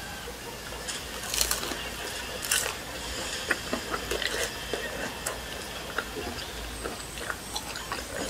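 Crunchy bites and chewing of a battered, deep-fried stuffed chili pepper (gochu twigim). Two loud crunches come about a second and a half and two and a half seconds in, followed by smaller crunches and mouth clicks as it is chewed.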